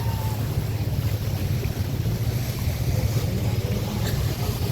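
Motorboat engines running as a flotilla of boats passes on the river, a steady low rumble.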